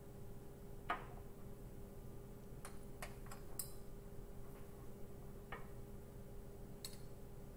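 Scattered light clicks and taps of small glassware being handled as borax powder is scooped from its box with a glass beaker, about eight in all, the sharpest about a second in. A faint steady hum runs beneath.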